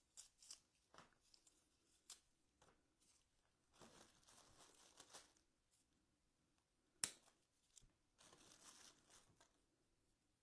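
Faint rustling and small clicks as wired craft picks are handled, with a single sharp snip of wire cutters cutting a pick stem about seven seconds in.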